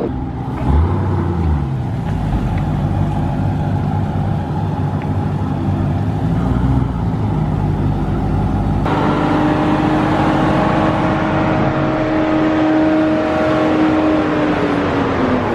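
Car engine running under load, its pitch rising and falling with the revs. About nine seconds in the sound changes abruptly to a steady engine note, which drops in pitch near the end as the engine slows.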